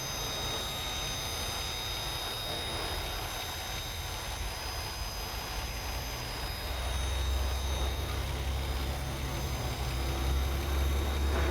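2016 Nissan Maxima's 3.5-litre V6 engine running with a steady low hum that grows louder about seven seconds in. A newly fitted aftermarket part is being tried against a bank-2 lean condition, code P0174.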